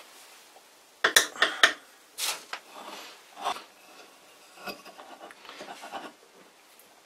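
Light clicks and knocks of a variable frequency drive's aluminium heatsink and circuit board being handled and shifted on the workbench: a quick cluster of clicks about a second in, a couple of single knocks after it, then fainter scattered taps.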